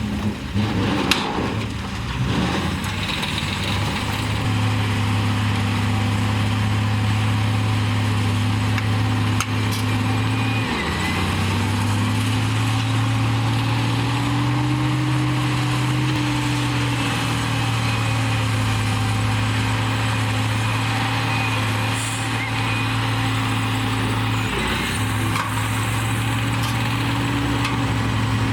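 Komatsu D58E bulldozer's diesel engine running steadily under load while pushing dirt, its note sagging briefly twice, about a third of the way in and near the end, then picking back up. A sharp knock sounds about a second in.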